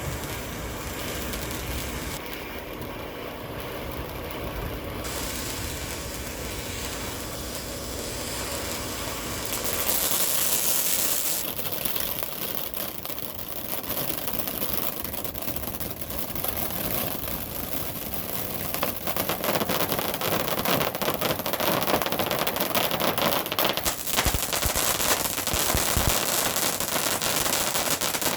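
A firework going off: a steady low rumble for about the first ten seconds, then a high hiss, then dense rapid crackling that grows louder through the last third.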